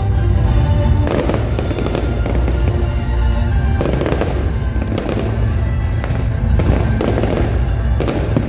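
Fireworks bursting and crackling in repeated waves over loud music with a heavy bass.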